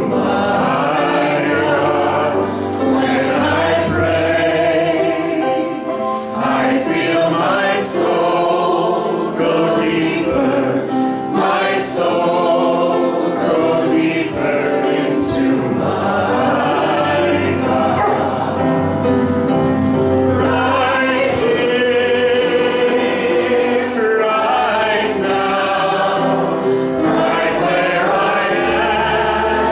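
Choir singing a slow gospel-style devotional song, with accompaniment that holds low bass notes under the voices.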